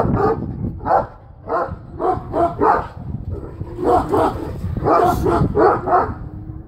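Large livestock-guardian dogs, Caucasian and Central Asian Shepherds, barking over and over in quick runs of short barks.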